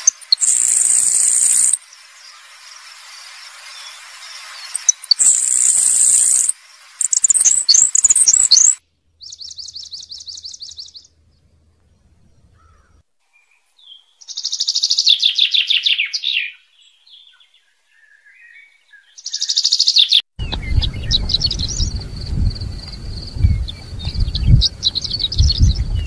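Several small songbirds singing in turn. It opens with high, thin buzzy songs, repeated a few times, then a buzzy trill. About halfway through comes a common chaffinch's song, a falling run of notes. From about three-quarters of the way in, a high repeated song sounds over low wind rumble on the microphone.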